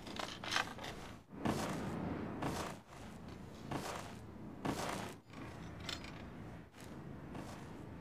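A series of short scraping, rustling noises, about one a second, over a faint steady background.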